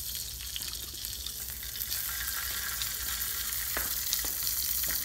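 Steady sizzling hiss with fine crackle from beef cooking in a hot Coca-Cola can, with two light clicks about four seconds in.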